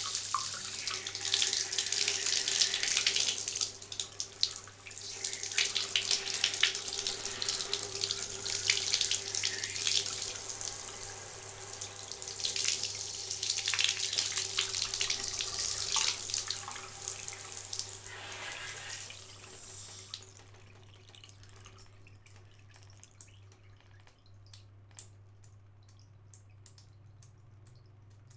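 Handheld shower spraying water onto a hand held over it, the hiss rising and falling in texture as the hand moves in the stream. The water shuts off about 20 seconds in, leaving faint scattered ticks, like drips.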